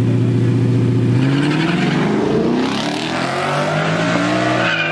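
Two muscle-car engines, a Chevrolet Camaro's and a Ford Mustang's, idling at the start line, then launching about a second in and revving up hard as the cars accelerate away down the strip.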